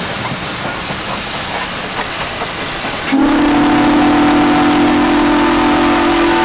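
Frisco 1630, a 2-10-0 steam locomotive, rolling past on the rails, then about three seconds in its steam whistle sounds one long, loud, steady blast.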